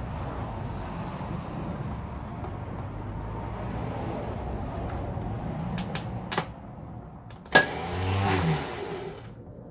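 Starter solenoid of a 1968 Datsun 1000, jumped across its terminals with a shifter: over a steady low hum, a few sharp clicks and then a loud click with a short buzz near the end, as the solenoid tries but does not engage, so the starter does not crank the engine.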